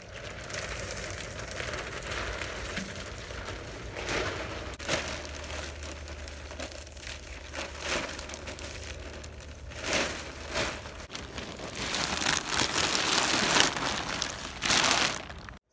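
Thin plastic sheeting rustling and crinkling as it is gathered up, folded and stuffed into a plastic storage tub. It comes in uneven swishes that grow loudest over the last few seconds.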